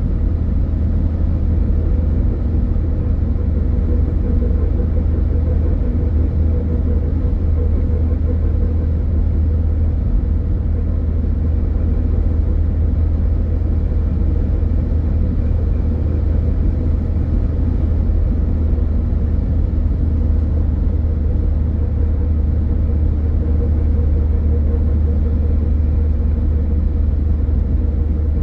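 Steady low road rumble of a car driving along at an even speed: tyre and engine noise with no change in pitch or level.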